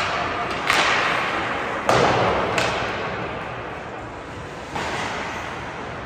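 Ice hockey play in an arena: sharp cracks and thuds of stick, puck and boards, four in all, the loudest two in the first two seconds, each echoing through the rink.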